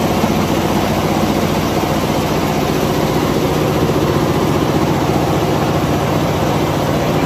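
Richpeace 20-head flat embroidery machine stitching, its many needle heads running together in a rapid, steady mechanical clatter with a low hum underneath.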